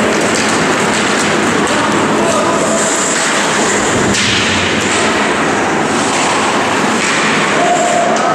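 Ice hockey game noise in a rink: a steady wash of skates scraping the ice and crowd noise, with brief shouts and stick clacks.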